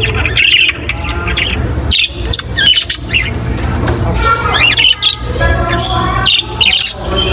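A group of budgerigars (budgies) chirping and chattering, with many short, quick calls, over a steady low hum.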